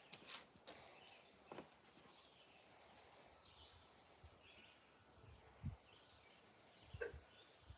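Near silence: faint outdoor ambience, with a couple of soft low thumps late on.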